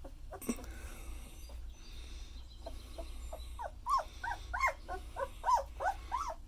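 Newborn German Shepherd puppies whimpering and squeaking. Short calls rise and fall in pitch, about two a second, starting about halfway through.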